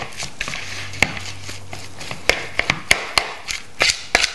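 A metal spoon mashing and stirring a thick stuffing and mashed potato mixture in a glass bowl, clinking and scraping against the glass in irregular taps.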